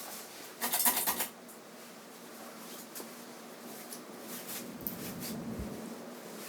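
Hampton Bay Minuet II 32-inch ceiling fan, made by SMC, running on high speed: a steady motor hum under a soft rush of air. A brief loud scratchy rustle comes about a second in.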